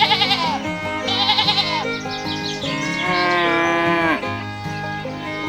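Bleating calls, like those of a sheep, over background music with steady low notes. Two short wavering bleats come near the start, and a longer call falls away about four seconds in.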